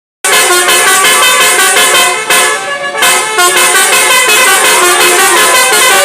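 Basuri multi-tone musical bus horns blasting together in a 'telolet' horn battle: many horn notes sounding at once in fast repeated blasts. They start abruptly just after the start and dip briefly in the middle.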